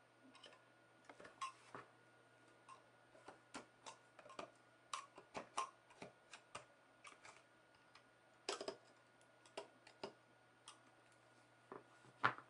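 Mac Mini plastic case being pressed and worked back onto its aluminium shell: irregular small clicks and taps of plastic and metal, with a louder click near the end.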